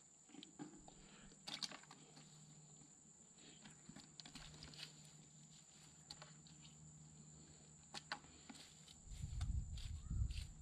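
Faint scattered clicks and short rustles of hands picking small shrimp out of a wet cast net spread on rocks. A louder low rumble comes in near the end.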